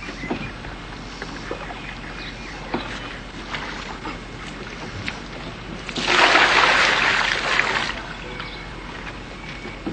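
A plastic bucket of lake water splashing for about two seconds, starting about six seconds in, with scattered light knocks before and after.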